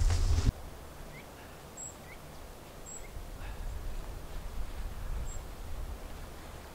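Crunching footsteps on dry leaves with handling noise, cut off abruptly about half a second in. Then a quiet forest with a low wind rumble and a few brief, thin, high bird chirps.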